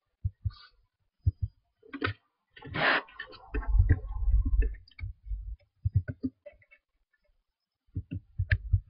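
Computer mouse clicks and keyboard key presses: a few separate clicks, then bursts of quick taps as text is typed. A louder rough, low rumbling noise runs for a few seconds in the middle.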